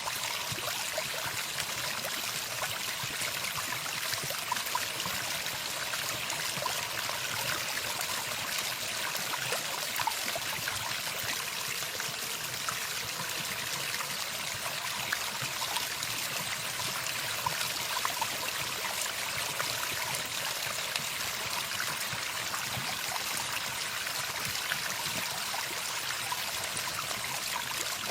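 Running water: a steady stream trickling and splashing evenly, with no breaks.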